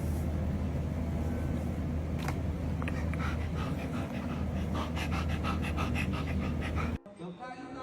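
An animal panting rapidly, about four quick breaths a second, over a steady low hum. The sound cuts off abruptly near the end.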